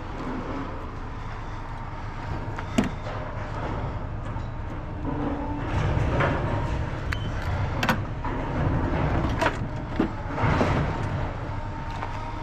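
A vehicle engine running steadily, with several sharp knocks and clanks over it: one about three seconds in and a cluster from about eight to ten seconds.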